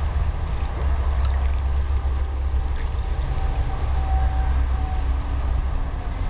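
Steady low rumble of wind on the microphone, with faint lapping and swishing of pool water as a person moves in it.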